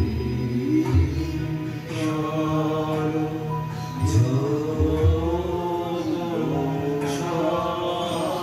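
Devotional chant sung by voices, the melody gliding between held notes, over a steady low accompaniment.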